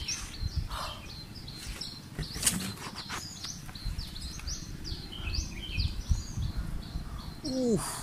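Small birds chirp repeatedly in the background over a low rumble and rustle close to the microphone. Just before the end comes a short vocal sound from the man, falling in pitch.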